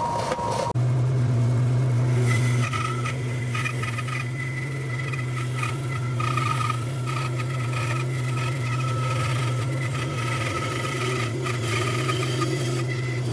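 A motor-driven machine running with a steady low hum and a fainter whine above it; the sound changes abruptly less than a second in.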